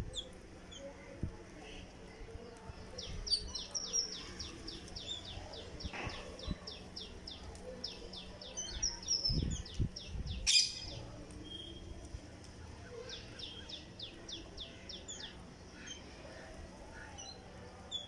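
Rose-ringed parakeets calling in quick runs of short high chirps, about four a second, twice over. A single sharp click stands out about ten seconds in.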